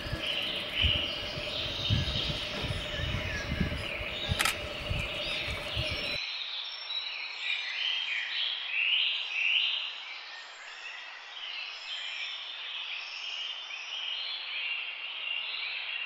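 Several birds chirping and calling, with many short repeated notes. For about the first six seconds a low rumbling noise lies beneath them; it stops abruptly, leaving only the bird calls.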